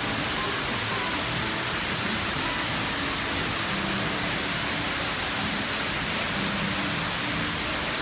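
Multi-storey indoor waterfall: thin strands of water falling down a tall wall into a pool below, making a steady, even rush.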